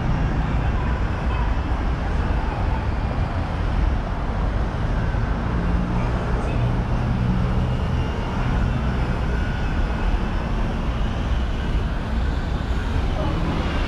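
Busy city road traffic: vehicles running past in a steady wash of engine and tyre noise, with a low engine hum rising out of it now and then.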